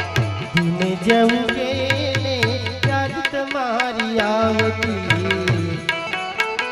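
Instrumental passage of a devotional bhajan: an Indian banjo plays a plucked melody over a harmonium, with tabla strokes keeping the beat.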